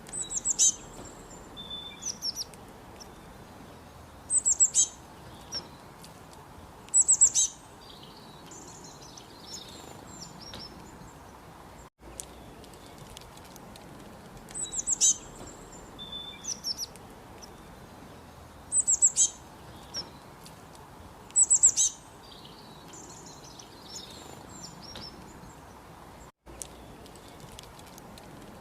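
Small birds chirping in short, high, bright calls, clustered every few seconds over a steady hiss. The same run of chirps repeats about halfway through, as in a looped recording.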